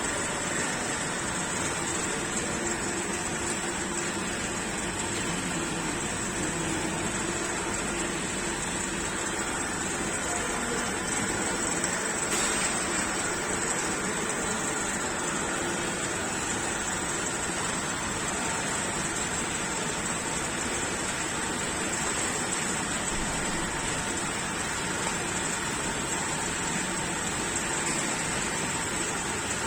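Steady rushing machine noise with a faint, constant high whine, unchanging throughout.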